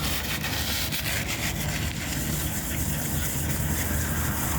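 Steady scratchy rubbing over a low, even hum, from cleaning old thermal paste off a desktop CPU.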